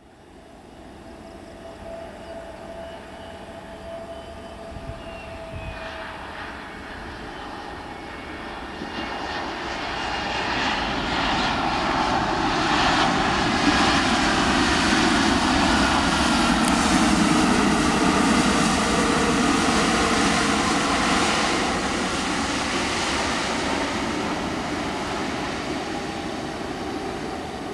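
Jet engines of an AirAsia Airbus A320-family airliner landing. The rushing whine builds steadily, is loudest for several seconds in the middle as the plane rolls out along the runway, then fades, with faint tones sliding in pitch.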